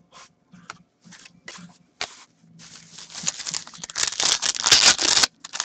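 A few light clicks and rustles of trading cards being handled. Then, from about three seconds in, a hockey card pack's foil wrapper crinkles and tears open, loudest near the end.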